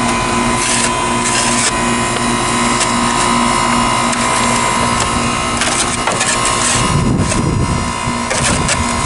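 Goodman GSH13 heat pump outdoor unit running with a steady hum and a pulsing tone, while snow is scraped and brushed away around it, heavier about seven seconds in.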